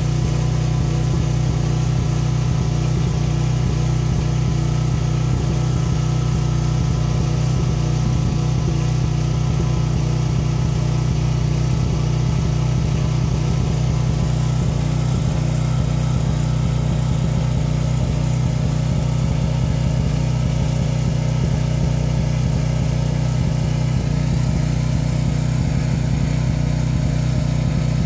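Car engine and road noise heard from inside the cabin while driving: a steady, even hum.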